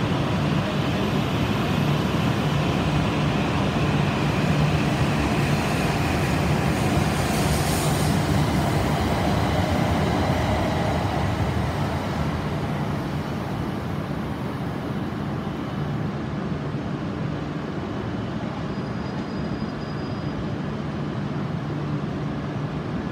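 E6 series Shinkansen train pulling out along the platform with a steady, loud running noise that eases off after about halfway, as the last car clears and the train draws away down the line.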